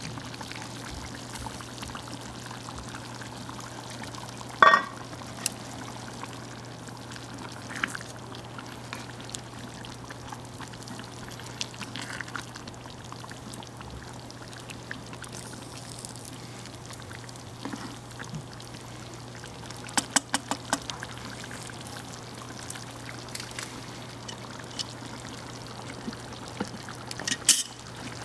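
Thick curry simmering and bubbling in a cast-iron Dutch oven over a charcoal fire, with scattered pops and knocks of a wooden spatula stirring against the pot. One sharp ringing knock about five seconds in, and a few clusters of clicks later on.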